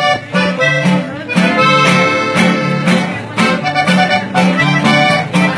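Instrumental band music: an accordion playing the melody over a bass line that alternates between two low notes, with a steady beat.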